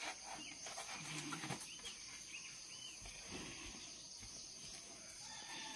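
Quiet outdoor ambience: a few faint bird chirps about two to three seconds in, over a steady high insect drone.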